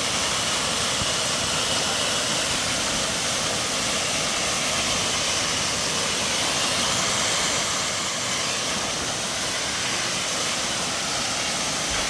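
Small waterfall rushing steadily as a thin column of water drops down a rock face.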